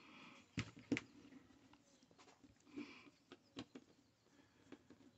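Faint, scattered clicks and taps of a hand screwdriver working the screws in the plastic casing of a horse clipper, a few sharp ones spread a second or so apart.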